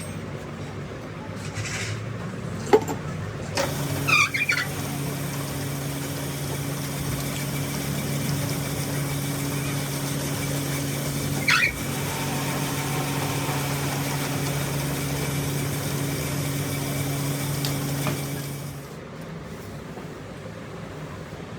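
A machine's electric motor runs with a steady hum. It starts about three and a half seconds in and stops near the end, with two brief high squeaks along the way.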